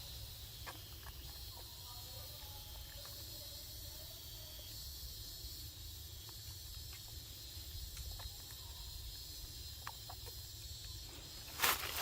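Quiet outdoor ambience: a steady low rumble and a faint high hiss with a few faint ticks, then near the end a sudden loud burst of rustling and crunching, like movement through dry leaves.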